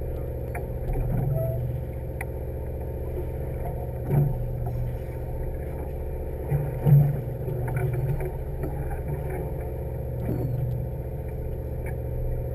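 Sportfishing boat's engine running steadily, a low even drone with a few brief louder bumps.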